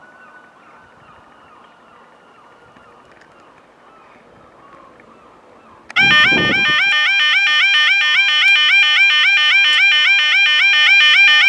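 Railway level-crossing alarm sounding loud: a repeating electronic two-tone warble that starts abruptly about six seconds in with a brief low rumble, the warning that the barriers are down and a train is approaching. Before it, only a faint steady hum.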